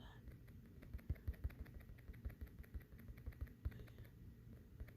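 Faint, irregular light clicks and taps, several a second and uneven in spacing.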